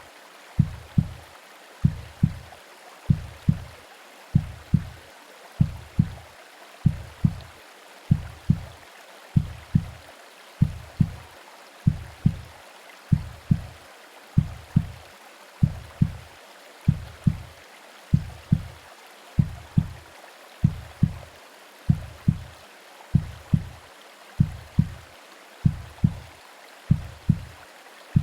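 Womb-sound heartbeat: low, soft thumps in lub-dub pairs, about one pair a second, over a steady hiss of white noise.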